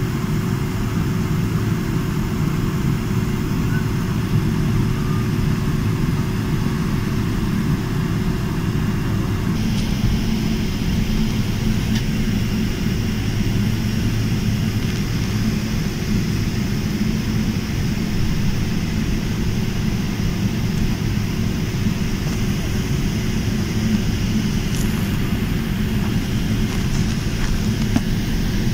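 Airliner cabin noise on the ground: the jet engines' steady low rumble heard through the fuselage from a window seat over the wing. About ten seconds in, a thin steady whine drops out and a higher hiss comes in.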